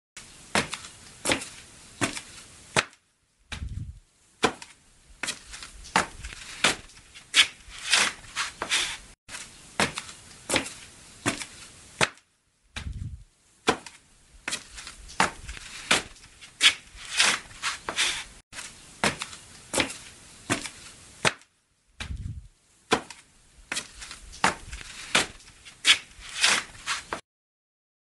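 Footsteps walking through an empty house, about two steps a second, in three runs separated by short pauses, each pause holding a short low thud.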